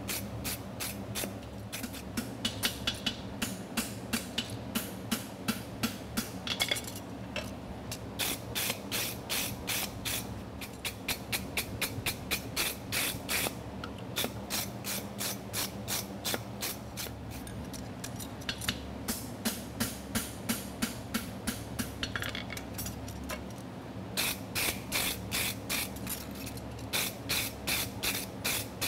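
A hand tool scrubbed back and forth over a forged steel horseshoe on the anvil in quick, even strokes, in runs of a few seconds with short pauses, cleaning slag and loose ends off the shoe. A steady low buzz from a cooling fan runs underneath.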